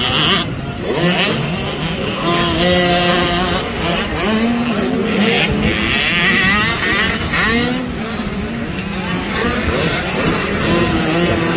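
Several youth motocross dirt bikes revving on the track, their engine pitch rising and falling over and over as the riders work the throttle and shift.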